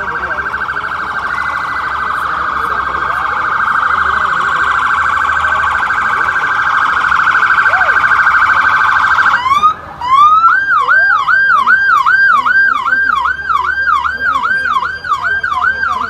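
Electronic siren: a fast warbling wail that breaks off about nine and a half seconds in, then switches to a repeating rising yelp, about two sweeps a second.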